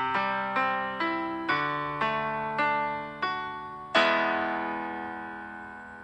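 Background piano music: a slow line of single struck notes, then a louder chord about four seconds in that rings on and fades.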